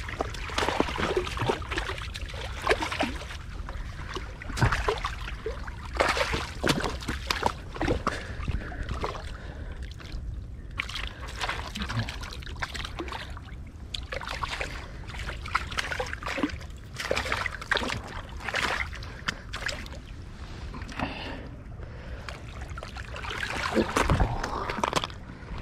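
Water sloshing and splashing against a rock ledge as a hooked tailor is worked through the shallows and landed, under a steady low rumble. Near the end the fish thrashes on the rocks.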